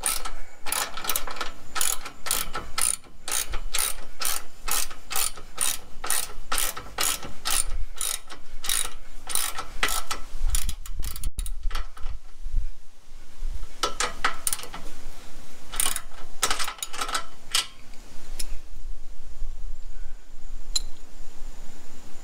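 Ratchet socket wrench clicking in a steady rhythm, about two to three clicks a second, as it tightens an exhaust clamp bolt. The clicking pauses about halfway through, picks up again, and dies away a few seconds before the end.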